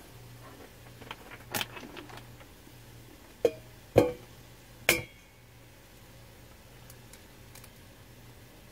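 Three sharp knocks on a stainless steel mixing bowl, each ringing briefly like struck metal, after a few lighter clicks and taps, as eggs are cracked and separated over it.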